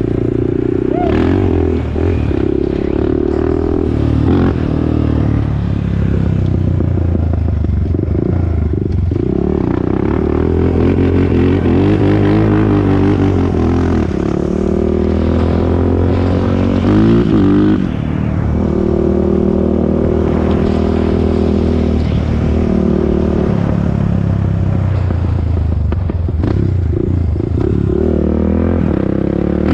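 2001 Honda TRX400EX ATV's single-cylinder four-stroke engine running while being ridden, its pitch rising and falling with the throttle.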